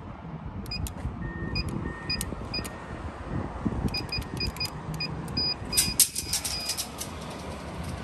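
Gate-access keypad being used: short electronic beeps with clicks, a few each second, with a longer steady beep tone about a second in and a denser run of clicks near six seconds.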